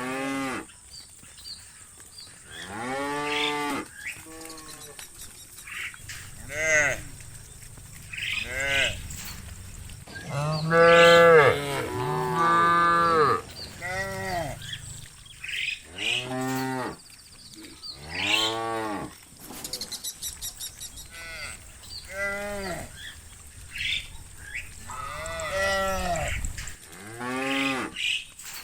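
A herd of cows mooing, one call after another all through, some overlapping. Each moo rises and falls in pitch, and the loudest pair comes about eleven to thirteen seconds in.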